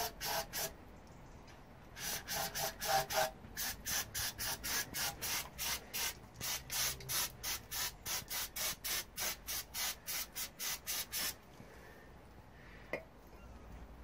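Aerosol spray can hissing in short rapid squirts, about three a second, as it is sprayed onto the magneto shaft of a British Seagull outboard to clean it.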